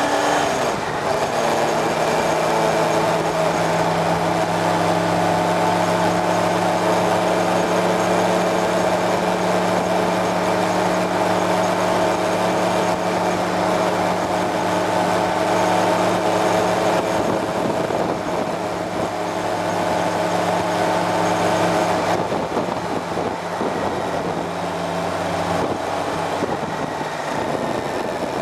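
Motorcycle engine running at a steady cruising speed, heard from on board with wind rush over it. About three-quarters of the way through, the engine note drops and eases off as the bike slows.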